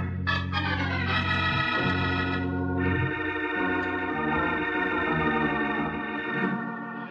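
Organ music bridge between scenes of an old-time radio drama: held chords that change a couple of times and thin out near the end.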